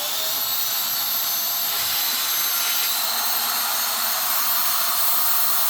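Vax Air upright vacuum cleaner switched on: its motor winds up with a short rising whine, then runs steadily with a loud rush of air through its hose, its filters still clogged and not yet washed.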